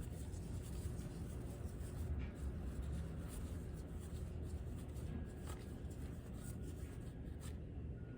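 Stiff cardboard baseball cards being thumbed through by hand: faint sliding and light flicks of card against card, a few soft ticks, over a low steady room hum.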